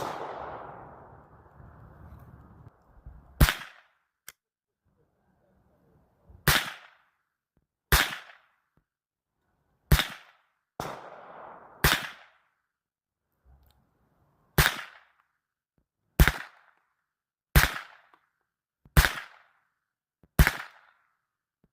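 About a dozen single shots from a .22 rifle, fired one at a time every one to three seconds, each a sharp crack with a short tail.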